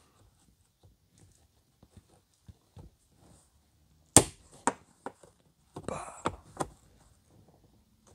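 Plastic clicks and snaps from a clipped-in dash defroster vent being pried up out of a soft dash pad. A sharp click comes about four seconds in, then several more clicks with brief scraping over the next two and a half seconds.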